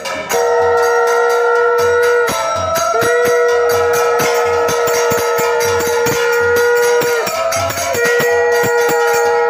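A conch shell blown in three long, steady blasts, with short breaks between them. Underneath, a khol drum and small hand cymbals keep up a steady rhythm.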